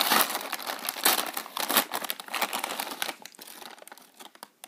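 A foil-lined plastic snack packet crinkling as hands tear it open, a dense crackle that thins out and dies away after about three seconds.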